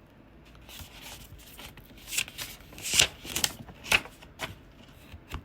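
Paper rustling and crackling as a book page is handled and turned, with a few sharper snaps about three and four seconds in.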